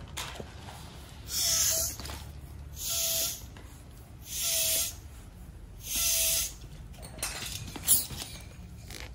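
Air being pumped into a patched bicycle inner tube: four hissing pump strokes about a second and a half apart, each ending in a short faint whistle, then a sharp click near the end. The tube is being inflated to check that the patch holds.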